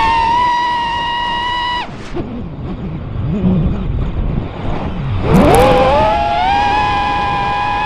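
Brushless motors and propellers of a 5-inch FPV freestyle quadcopter, heard from the camera on its frame. A steady high whine under throttle cuts off sharply about two seconds in, leaving a few seconds of lower rushing noise. The whine then climbs quickly as the throttle comes back on and holds high until the end.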